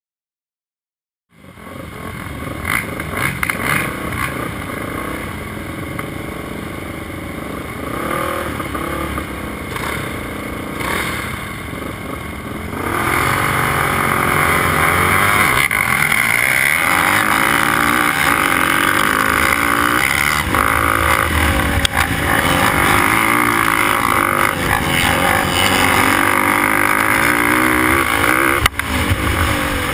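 Race quads (ATVs) revving at the starting line, heard from on board one of them; about 13 s in the level jumps as the pack launches, and the quad's engine runs hard at full throttle, its pitch rising and falling as it accelerates down the track.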